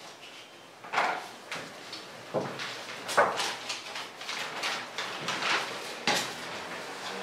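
Paper sheets and photographic prints being handled, shuffled and slid across a desk: a run of irregular rustles and light slaps, the loudest a little after three seconds in.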